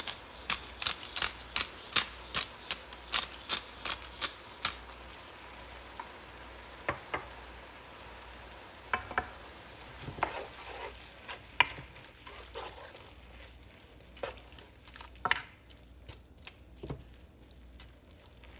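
A pepper grinder clicking in fast, even ticks, about three a second, for the first four or five seconds. Then a wooden spatula stirs shrimp and vegetables in a ceramic nonstick pan, with scattered knocks and scrapes over a faint sizzle.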